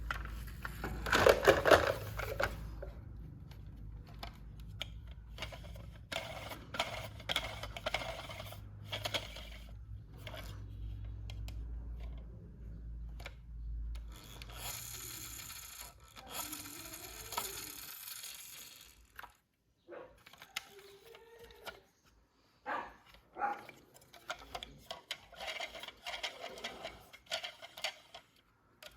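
Handling sounds of a toy being unboxed: irregular scrapes, taps, clicks and rustles, with a hissing rustle about fifteen to eighteen seconds in. A low steady hum runs under the first two-thirds and stops.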